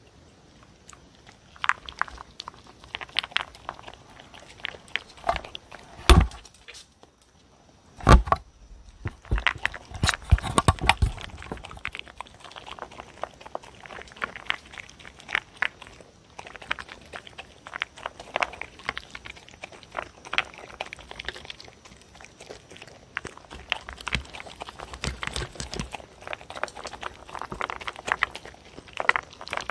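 A dog chewing and crunching diced squid, beef and kibble, with many small clicks of teeth and food against a plastic tray. Two loud knocks come about six and eight seconds in.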